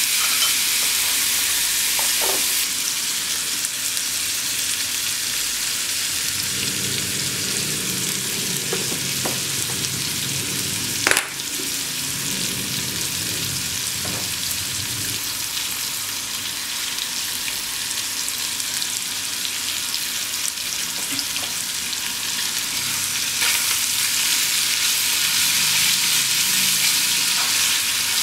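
Thinly sliced beef and onion sizzling steadily in a small nonstick pan, with the occasional scrape of chopsticks stirring. A single sharp tap about eleven seconds in.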